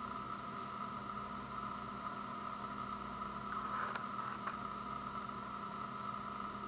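Steady background hum and hiss with a couple of faint clicks about four seconds in.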